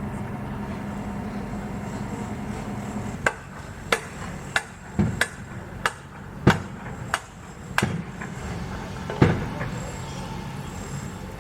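Construction-site ambience: a steady low machine drone, then about ten irregular hammer blows starting about three seconds in, the last one near the end.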